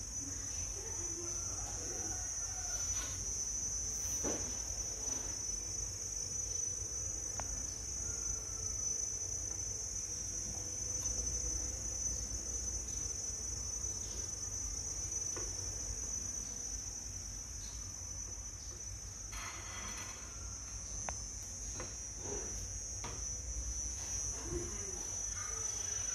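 Crickets trilling in one steady, high, unbroken tone, over a low background rumble with a few soft knocks.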